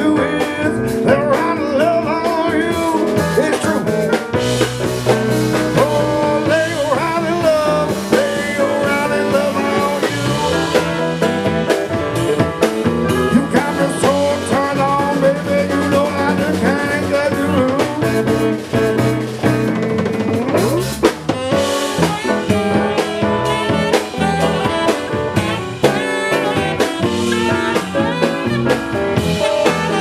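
A band playing a song live, with a drum kit keeping a steady beat under guitar and other instruments.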